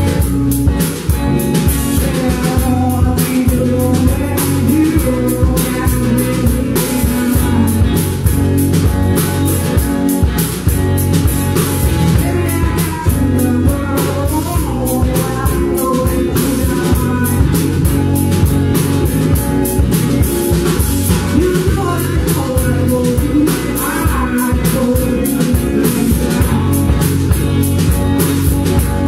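Live blues-rock band playing: electric guitars over a steady drum-kit beat, with a woman singing.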